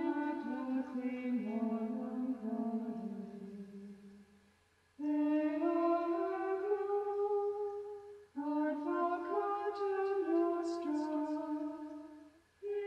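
Unaccompanied singing: a slow melody in long held notes, sung in three phrases with short breaks between them.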